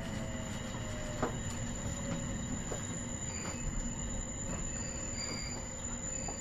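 Inside a Sendai Airport Line electric commuter train running between stations: the steady rumble of wheels on rails with faint knocks from rail joints and thin steady high-pitched tones over the top.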